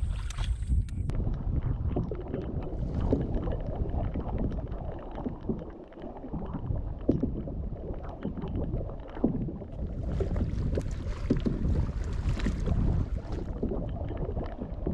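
Wind buffeting the microphone and water splashing and slapping around a canoe being paddled across choppy water.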